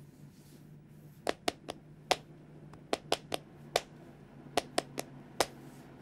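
Recorded hand claps (palmas) in a song's intro, starting about a second in and coming in short irregular groups of two to four. They sound quite dry but still carry some room sound, over a faint hiss that is taken for analog recording noise.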